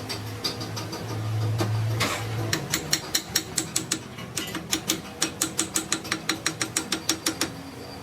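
A low steady hum, then a rapid, even run of mechanical clicks, about five a second, that stops near the end.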